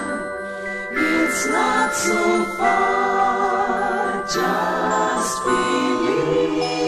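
Music of a choir singing slow, held chords.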